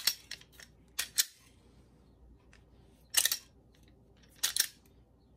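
Sharp metallic clicks of a SIG P320 pistol being handled, its trigger and slide worked by hand: a handful of separate clicks, some in quick pairs, with quiet between them.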